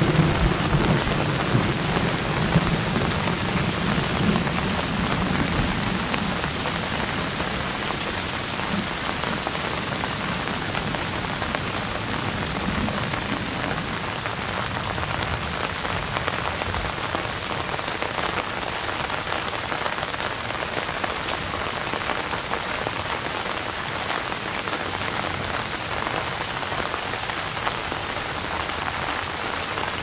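Steady rain falling on the leaves of an apple tree, an even hiss of drops. A low rumble of thunder in the first few seconds fades away.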